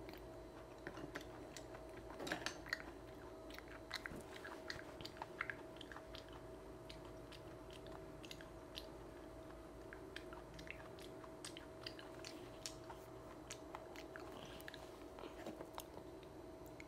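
A person chewing raw coconut worms: soft, wet mouth clicks and chewing noises, most frequent in the first few seconds, over a faint steady hum.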